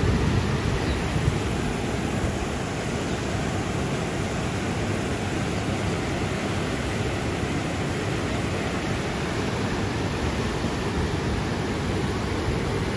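Steady rushing noise of water, with a deep rumble underneath.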